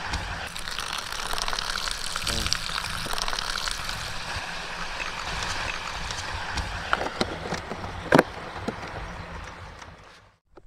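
Water pouring steadily into the plastic tray of a self-heating hot pot over the vegetables and spice paste, with a sharp click about eight seconds in; it fades out just before the end.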